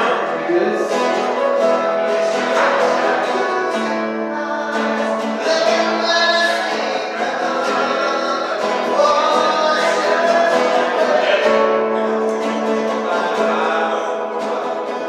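Live music: a singer performing a song with guitar accompaniment, notes held and changing.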